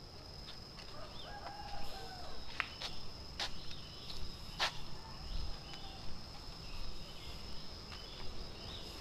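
Tropical morning ambience: a steady high-pitched insect drone, small birds chirping, and a rooster crowing once about a second in. Several sharp clicks, most of them between about two and five seconds in, likely footsteps on the dirt path.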